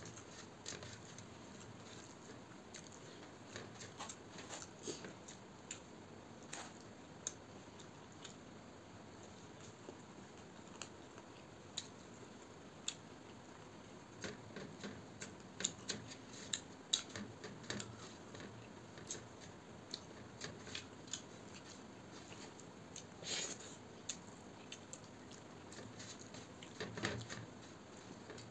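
Eating by hand from a steel plate: scattered small clicks and smacks as fingers scrape and gather rice on the metal plate and the mouth chews, close on a clip-on microphone. The clicks come in irregular clusters, thickest around the middle and near the end.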